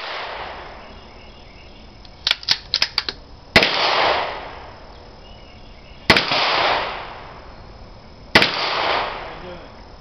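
.22LR rifle shots: three sharp cracks about two to two and a half seconds apart, each followed by a rolling echo lasting about a second. A quick run of small clicks comes shortly before the first shot.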